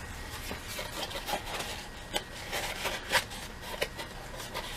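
A cloth sock being turned inside out by hand: fabric rubbing and rustling, with irregular short scrapes.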